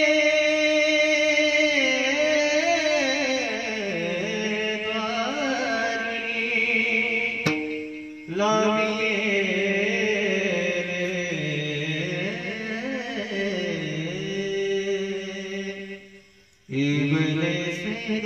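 A male bhajan singer sings long, wavering, ornamented phrases without accompanying rhythm, in the closing Bhairavi of the program. There are two long phrases, each held for about eight seconds, with a short breath between them and a brief pause near the end.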